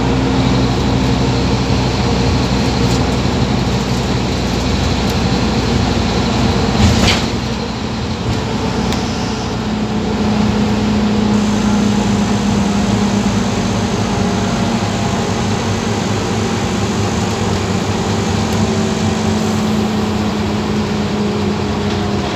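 Scania OmniCity bus heard from inside the passenger saloon while under way: steady engine and road noise, with a knock about seven seconds in and the engine note shifting a little after that.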